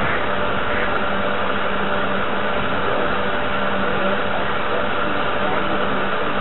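Model paddle tug's drive and paddle wheels running under way, heard close up from on board: a steady mechanical hum with a constant low tone that does not change.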